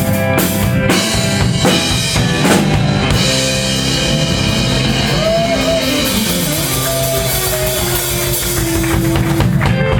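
Rock music with a drum kit, bass and guitar; the drum hits stand out in the first few seconds, then held and gliding notes carry on.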